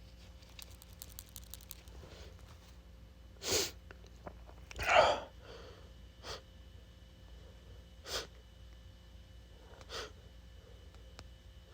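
A man sneezing from a pollen allergy. There is a short sneeze about three and a half seconds in and the loudest, fuller sneeze about five seconds in, followed by a few shorter, quieter bursts.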